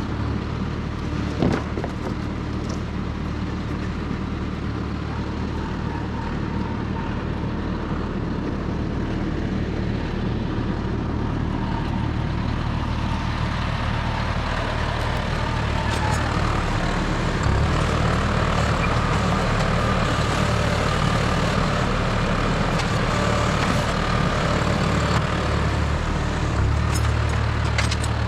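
John Deere 5075E diesel tractor engine running steadily under work, getting louder about halfway through, with a single sharp knock near the start.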